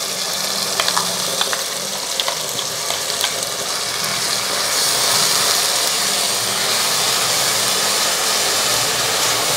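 Onion-tomato masala paste sizzling in hot oil in a stainless steel pot as a spatula stirs and spreads it. A few sharp clicks of the utensils against the metal come in the first few seconds, and the sizzle grows steadier and a little louder from about halfway.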